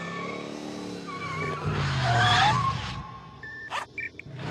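Car engine running with a loud burst of tyre squeal about two seconds in, followed by a sharp click and a few short high tones near the end.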